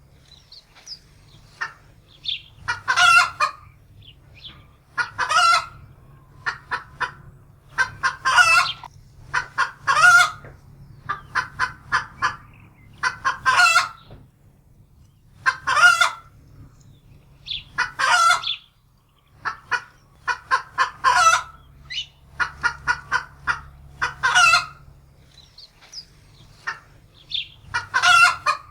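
Domestic hen cackling in alarm: runs of short clucks, each building into a loud drawn-out squawk, repeating every two seconds or so.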